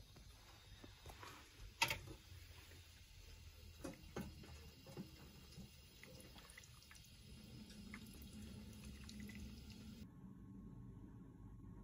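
A ladle stirring a pot of seaweed soup: liquid sloshing, with scattered light clinks of the ladle against the pot. The sharpest and loudest clink comes about two seconds in.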